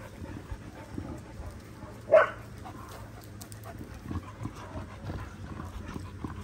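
A dog gives one short bark about two seconds in, over a low background.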